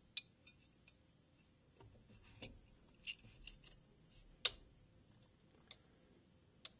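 Faint, scattered sharp clicks and light knocks of AR-15 trigger parts and the lower receiver being handled and seated: about half a dozen clicks, the loudest about four and a half seconds in.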